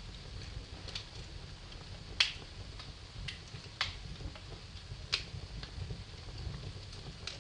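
Wood fire crackling in a fireplace: scattered sharp pops over a low, steady rumble of flames, with three louder snaps about two, four and five seconds in.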